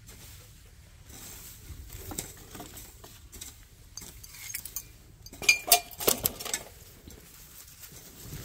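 Rustling and light clicks in leafy undergrowth as plants are moved, with a short cluster of sharper rustles and clicks about five and a half seconds in.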